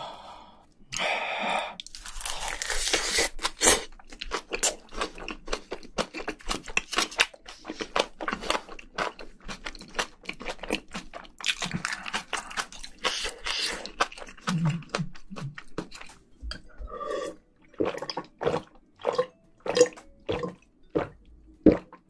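Close-miked chewing of a mouthful of sauce-soaked rice wrapped in roasted seaweed: wet smacking mouth sounds with many quick, irregular clicks and crunches.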